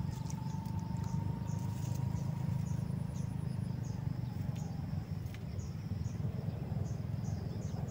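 Insects chirping in an even rhythm, about three short chirps every two seconds, with a thin steady high buzz joining about three seconds in. A steady low rumble runs underneath and is the loudest part.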